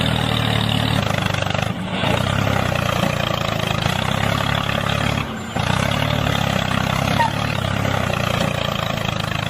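A motor running steadily, with two brief dips, about two seconds in and about five seconds in.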